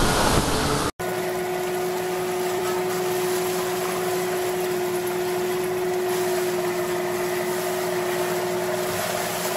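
Loud, noisy deck sound cuts off abruptly about a second in and gives way to a steady mechanical drone of fishing-boat machinery. The drone carries a constant low hum with fainter higher tones and does not change.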